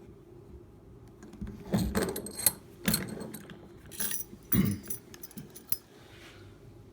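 Metallic clinks and rattles of an opened Egret padlock and lock-picking tools being handled, a cluster of sharp clicks and jangles from about a second and a half in until near six seconds.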